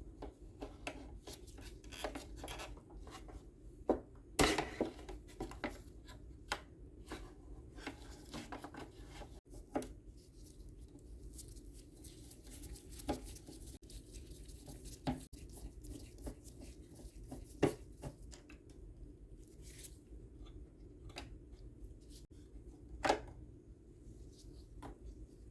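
Hand disassembly of a DeLonghi espresso machine: irregular clicks, scrapes and rubbing of tools on plastic and metal parts, with a few sharper knocks, the loudest about four seconds in, and others near ten, eighteen and twenty-three seconds in.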